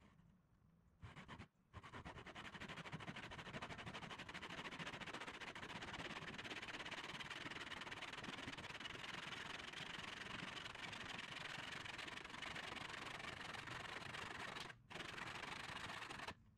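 Backsaw cutting through a wooden block in a plastic miter box: after a short first stroke, steady back-and-forth rasping sawing, broken by a brief pause about three-quarters of the way through and another just before the end.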